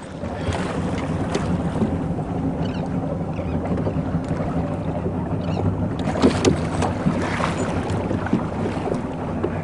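Motorboat underway on open water: a steady low engine hum under wind noise on the microphone, with a couple of sharp knocks about six seconds in.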